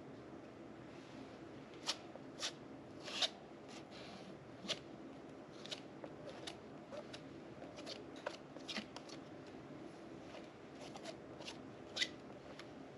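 Metal palette knife scraping and dabbing thick modeling paste on a canvas: an uneven string of short scrapes and taps, the sharpest about two seconds in, about three seconds in and near the end.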